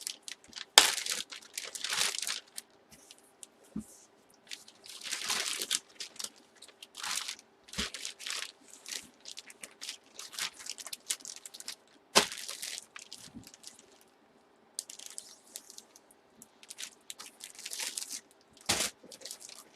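Plastic packaging crinkling and rustling in irregular bursts as an item is handled and bagged, with a few sharp knocks in between.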